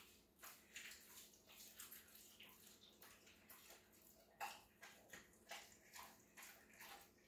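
German shepherd chewing and licking a T-bone steak: faint wet smacks and gnawing clicks, a few a second, in an irregular run.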